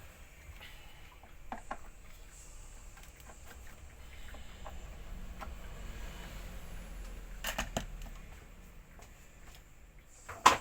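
Handling noises from repair work on an industrial vacuum cleaner: a few light clicks and knocks, a short cluster of knocks past the middle, and one sharp, loud knock near the end, over a low background hum.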